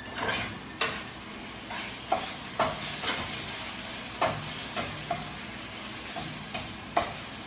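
Chicken strips frying in hot olive oil in a skillet with a steady sizzle, while a utensil stirs them around the pan, clacking against it about ten times at uneven intervals.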